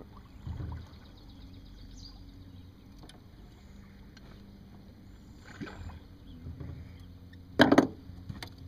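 Electric trolling motor running with a faint steady hum as its propeller churns the water behind the boat. A brief loud knock comes near the end.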